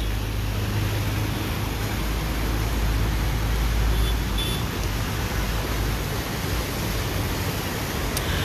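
Steady rushing noise of floodwater and road traffic on a flooded street, with a constant low rumble underneath.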